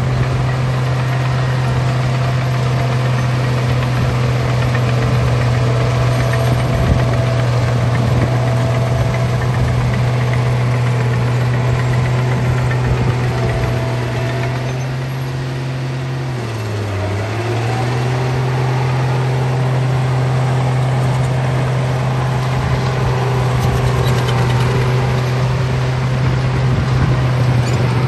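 Bulldozer engine running steadily at a constant pitch. About two-thirds of the way through it sags briefly and then picks back up.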